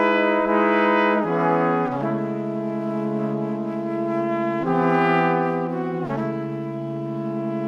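Background music: slow, held chords that change every second or two.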